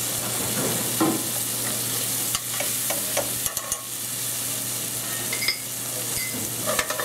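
Chicken livers, onions and borlotti beans sizzling steadily in a hot stainless steel sauté pan, with a few light knocks and scrapes in the first four seconds as beans are crushed in the pan to thicken the sauce.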